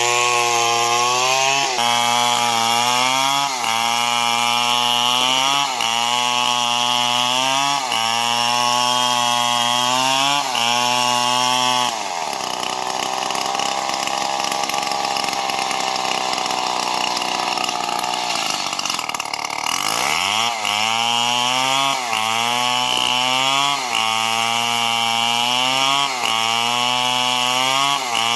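STIHL MS 070 two-stroke chainsaw cutting through wood, its engine pitch sagging under load and recovering about every two seconds. For several seconds in the middle the sound turns steadier and a little softer, then the pitch sweeps up and the rhythmic cutting resumes.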